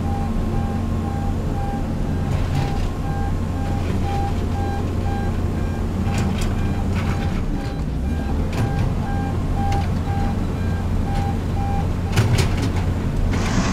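Diesel engine of an XCMG XR150D rotary drilling rig running steadily, with a warning beeper sounding a regular series of short beeps, about two a second, that stops about two seconds before the end. A few metallic knocks come through, the loudest near the end.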